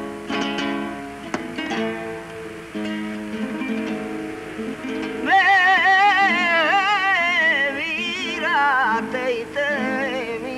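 Flamenco music: an acoustic guitar is strummed and plucked. About five seconds in, a singer comes in with a wavering, quavering melodic line that lasts a few seconds, then the guitar carries on alone.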